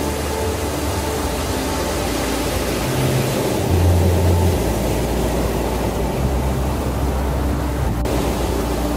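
Ambient background music: sustained low synthesizer-like tones that shift every second or two over a steady rushing noise.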